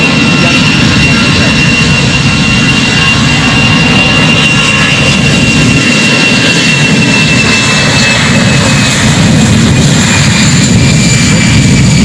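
Jet airliner's engines running loud and steady, a dense rush with a high fan whine over it; the whine sinks a little in pitch about two-thirds of the way through while the rush grows slightly louder.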